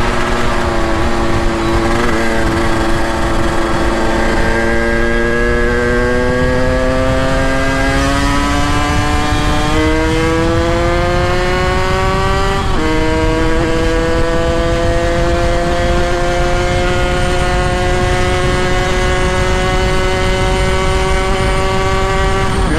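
Two-stroke motorcycle engine under way, its pitch climbing slowly for about twelve seconds, dropping suddenly as it shifts up a gear, then holding steady at cruising speed.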